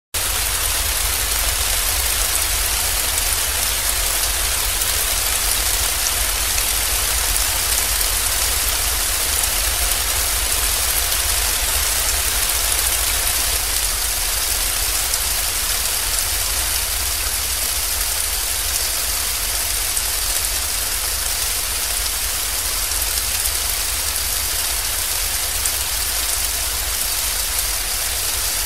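Steady rain: a dense, even hiss of falling drops that holds constant, with a steady low rumble beneath it.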